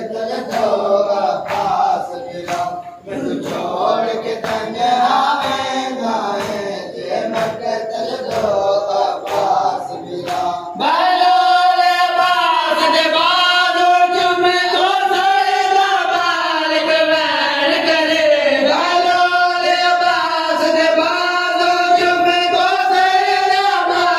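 Men chanting a noha together in a crowd, with rhythmic chest-beating (matam) strikes about one to two a second. About eleven seconds in, a louder lead male voice takes over with long sustained sung lines of the lament, and the strikes mostly stop.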